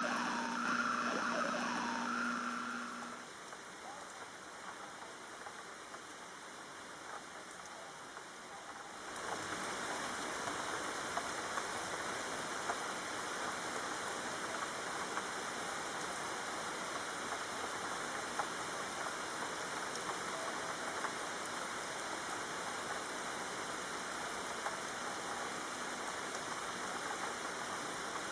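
Steady rain falling, an even hiss with scattered drop ticks, which grows louder about nine seconds in. In the first three seconds a steady hum sounds over it, then stops.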